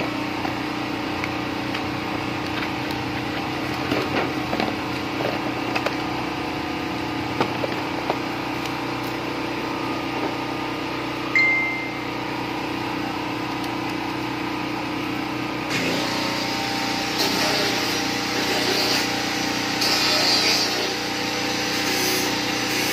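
Plastic packaging and bubble wrap crinkling and parts knocking as a solar wall lamp is unpacked and handled, over a steady background hum. A short high beep sounds about eleven seconds in, and the crinkling grows busier in the last few seconds.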